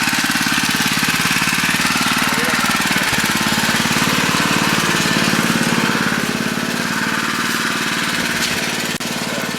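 Small petrol engine of a portable water pump running steadily, with a rapid, even chugging.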